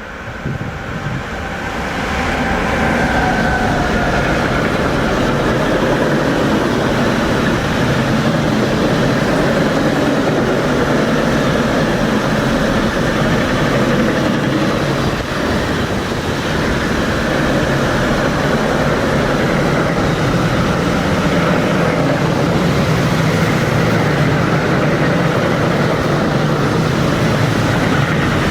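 A train running past at close range: a loud, steady rumble of wheels on rail that builds over the first two seconds and then holds.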